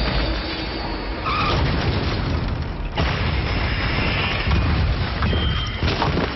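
Film sound effects of spinning alien drone weapons smashing through buildings: a continuous heavy rumble of explosions and crashing debris, with a sharp impact about three seconds in and another near the end.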